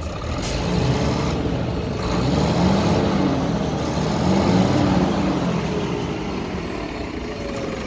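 Scania 560 Super 13-litre straight-six diesel engine running, revved up and back down twice, then settling back toward idle near the end.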